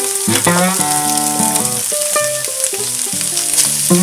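Chopped taco meat sizzling steadily as it fries on a hot flat pan, under background music of plucked guitar-like notes.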